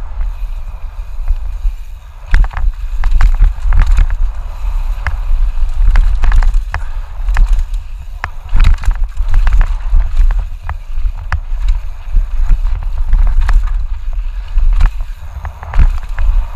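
Mountain bike descending a rough dirt trail, heard from a helmet-mounted camera: a constant low rumble of wind and trail noise on the microphone, with frequent irregular knocks and rattles as the bike runs over rocks and roots.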